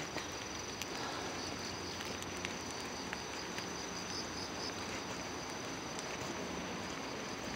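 Insects trilling steadily on one high note over the soft even hiss of light rain falling on the leaves, with a few faint footsteps on the forest floor.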